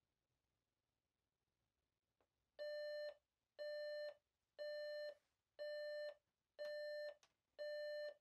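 RCA digital alarm clock going off: six evenly spaced electronic beeps, about one a second and each about half a second long, starting about two and a half seconds in.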